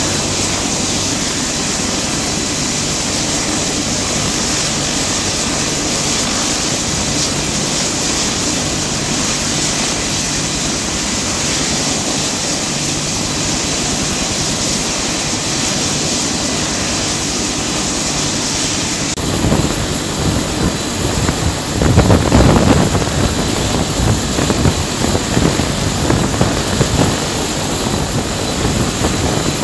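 An AH-1W Super Cobra helicopter idling on the ground with its rotors turning: a steady turbine whine and rush from its twin turboshaft engines. About two-thirds of the way through the sound turns into a lower, gusting rumble with irregular loud buffets.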